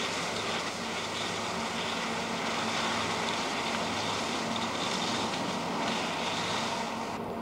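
Steady rushing wind noise on a camcorder microphone while moving down a ski slope, with a faint low hum underneath. It cuts off suddenly at the end.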